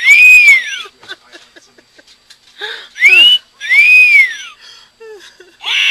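Parrot wolf-whistling. The tail of a rising-and-falling whistle comes at the start, then a full two-part wolf whistle about three seconds in: a quick rising note, then a longer note that rises and falls. A short harsh call comes near the end.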